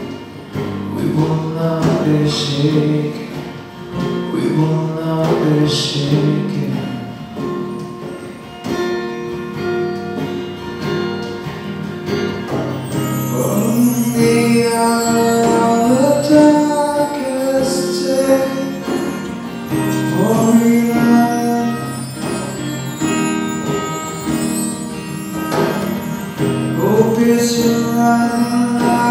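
Live worship band playing a song, with guitars and drums under held sung notes.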